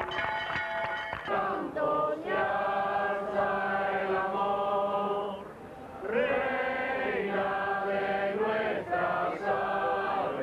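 A group of voices singing a slow song with long held notes, breaking briefly about five and a half seconds in. At the start, other music with steady tones and drum strokes stops about a second in as the singing begins.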